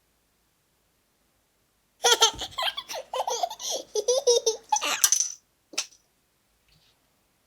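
A small child laughing in quick high-pitched giggles for about three seconds, starting about two seconds in, followed by one short sharp sound.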